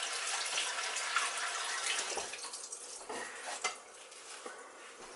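Kitchen tap running as raw steak is rinsed under the water, the stream splashing steadily and easing off about halfway through, with a few light knocks at the sink.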